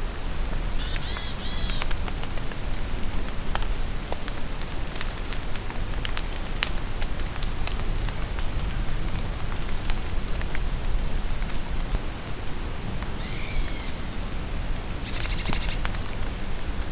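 Rain falling in a forest, a steady hiss with scattered sharp drip ticks. Songbirds call over it: a short warbled phrase about a second in, a few high notes and another phrase later, and a fast trill near the end.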